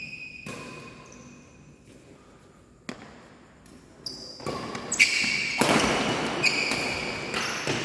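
Badminton play on an indoor court: short squeaks of sneakers on the court floor and sharp racket strikes on the shuttlecock, about a second and about three seconds in. The second half holds a louder stretch of mixed noise.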